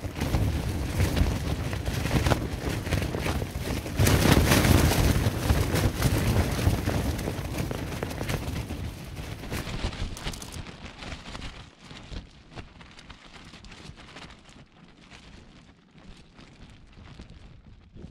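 Gusting wind battering a nylon tent, the fabric flapping and rattling loudly in a dense continuous racket that peaks about four seconds in. About ten seconds in it drops to a much quieter, fainter rustle.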